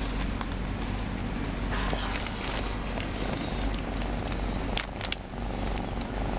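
Domestic cat purring steadily while its head is scratched. Rustling of plastic and boxes comes about two seconds in, and a few sharp clicks come near five seconds in.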